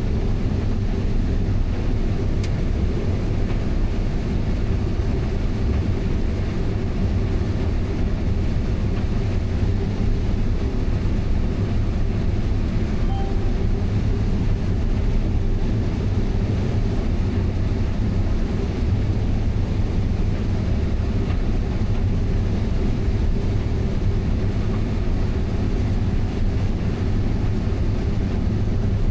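Steady low drone of a heavy vehicle's engine running at a constant speed, with no change in pitch or level.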